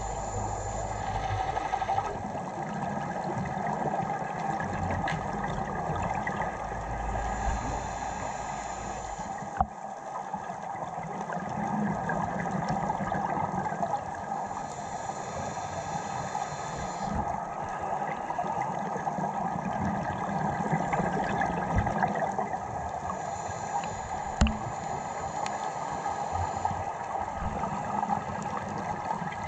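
Underwater ambience: a steady muffled rushing noise, with the hiss and bubbling of a scuba diver's exhaled breath from a regulator returning every seven or eight seconds. Two sharp knocks, one about ten seconds in and one near the end.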